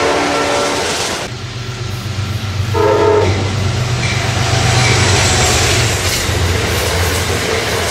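Passenger train passing, its horn sounding a chord: a long blast ending about a second in and a short blast about three seconds in, over the low rumble and rail noise of the passing cars.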